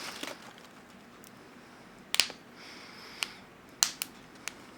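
Freshly microwaved pork rinds still popping and crackling as they finish puffing: a few sharp, separate pops, two of them close together about four seconds in.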